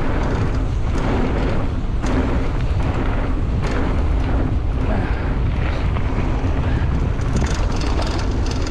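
Wind buffeting the microphone of a bike-mounted camera as an aluminium hardtail mountain bike runs fast down a gravel trail, with a steady deep rumble, tyre crunch on the loose surface and scattered rattling clicks from the bike.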